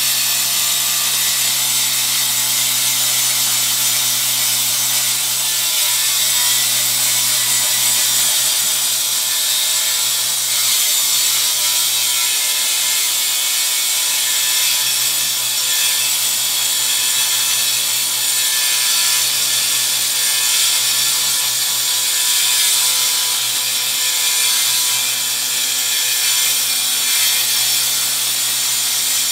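Angle grinder with a diamond blade cutting steadily through a granite countertop to open the hole for a sink, with a shop vacuum running at the cut to draw off the stone dust.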